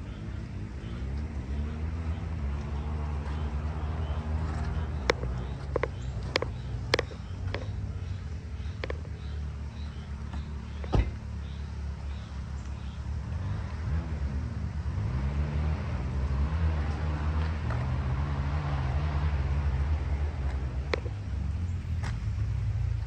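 A motor vehicle's engine running on the move, its pitch rising and falling with speed, under a haze of wind noise. A handful of sharp knocks or clicks come between about five and eleven seconds in.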